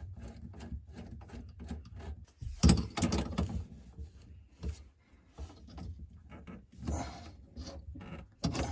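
A faucet supply hose's nut being threaded and tightened onto a chrome angle stop valve under a sink, by hand and then with a wrench: scattered small metallic clicks, scrapes and knocks, with a louder knock about three seconds in and another near the end.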